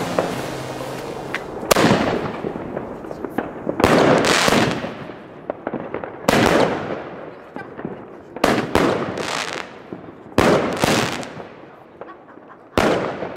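Weco Wolf Blood firework battery firing shot after shot into the air. There are about six loud bangs, roughly one every two seconds, and each one fades away over about a second.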